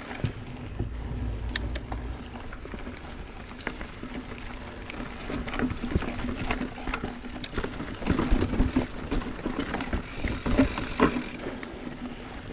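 Mountain bike rolling along a rough dirt trail: the bike rattles and knocks over bumps and roots, over a steady low hum from the tyres.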